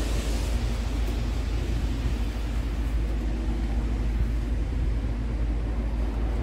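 Road traffic passing on the street: a steady low rumble of vehicles with an even wash of noise above it.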